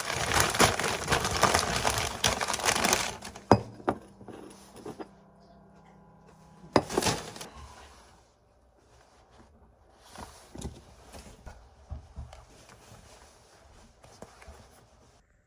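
Packaging or a plastic bag crinkling and rustling for about three seconds, then a few sharp knocks and quieter handling rustles.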